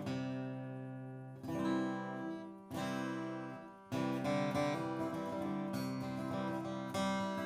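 Martin D-28 Authentic 1941 steel-string dreadnought acoustic guitar played with a pick. A few chords are struck and left to ring and fade, then a busier passage of picked and strummed notes begins about four seconds in.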